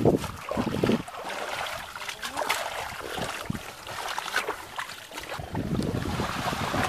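Water splashing and dripping as a fine-mesh net full of fish, mud and water hyacinth is lifted and worked in shallow water, with water streaming through the mesh and clumps of weed pulled out dripping.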